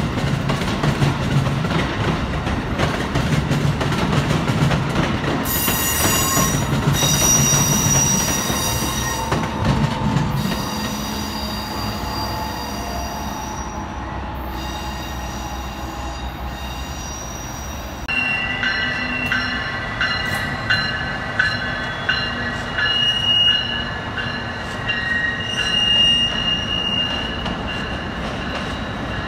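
Rail cars rolling by with steel wheels squealing on the rails. Over a low rumble, several high-pitched squeal tones start about five seconds in and keep shifting in pitch for the rest of the time.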